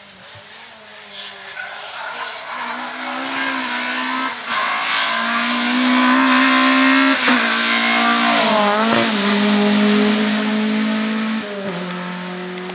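Rally car approaching at speed, its engine note growing louder and climbing. About seven seconds in it breaks and dips, then rises again and holds as the car passes, before falling away near the end.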